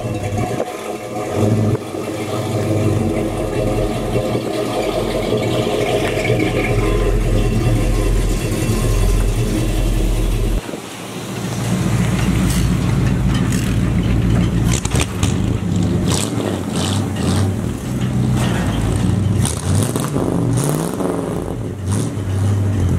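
Old pickup-truck and car engines running and being driven, with revving. The sound dips briefly about halfway through, then an engine comes in again and revs.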